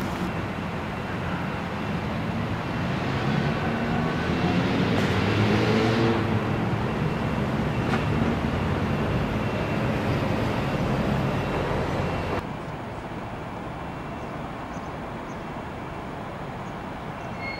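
Road traffic noise: a steady rumble of passing vehicles, with a vehicle going by and swelling louder about four to six seconds in. About twelve seconds in the sound drops abruptly to a quieter, even traffic hum.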